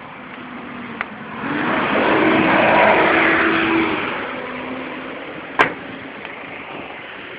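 Car engine and road noise swelling for a couple of seconds and then easing, with a sharp click a little before the end.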